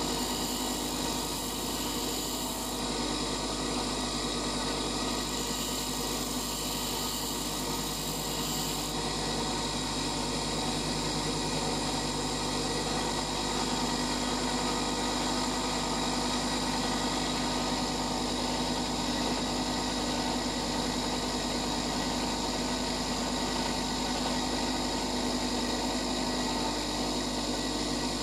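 Bench grinder running with a steady electric hum while a twist drill bit is sharpened on its wheel, with a brighter hiss of grinding in the first few seconds and again from about five to nine seconds in.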